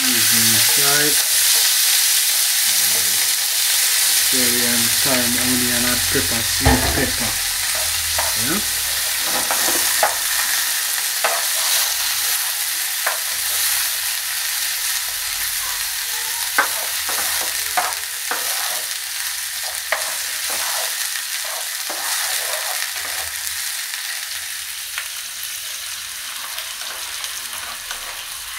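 Chopped onion, sweet pepper and thyme sizzling loudly in hot oil in a nonstick frying pan, stirred with a spatula that taps and scrapes against the pan now and then. The sizzle slowly dies down.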